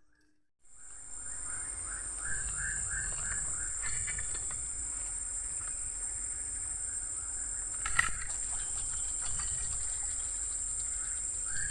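Tropical forest ambience: insects droning in a steady high whine over a low rumbling background, with a short run of quick chirping animal calls a couple of seconds in and again near the end. It starts abruptly after a brief silence, and a single sharp click comes about eight seconds in.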